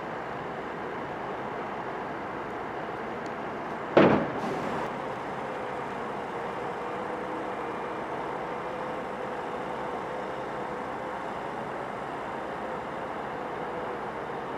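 Bulldozer's diesel engine running steadily under load, with a steady whine over the engine noise. One sharp, loud bang about four seconds in.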